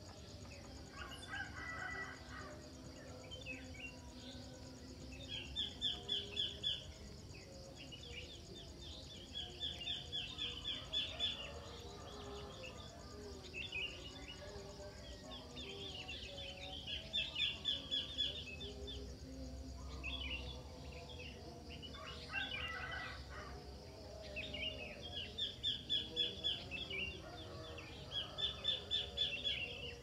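Birds calling in the morning: a rapid chattering phrase about a second and a half long repeats several times, a few seconds apart, with fainter calls between, over a steady high insect drone.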